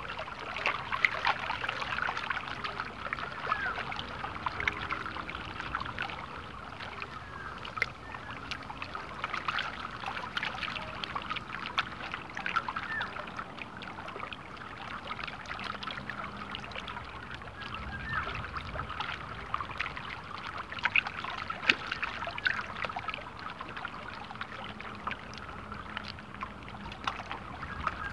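Small wind-driven ripples lapping and splashing at the water's surface right by the microphone, a continuous crackle of many little water sounds.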